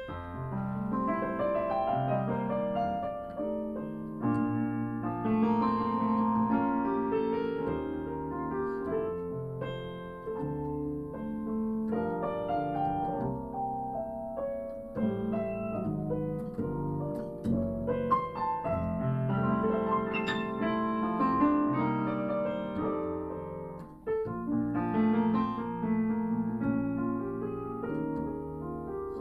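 Piano and double bass playing a duet, with the bass holding low notes beneath the piano's melody and chords.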